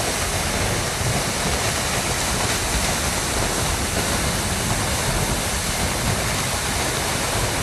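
Loud, steady rushing of a tall waterfall plunging into its pool, an even wash of water noise with no breaks.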